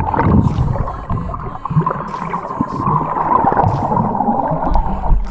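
Sea water sloshing and gurgling around the camera as it moves at the surface, with small clicks and knocks.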